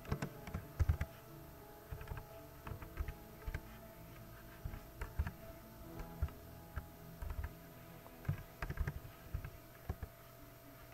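Typing on a computer keyboard: irregular keystrokes, some in quick runs and some singly with short pauses between, over a faint steady hum.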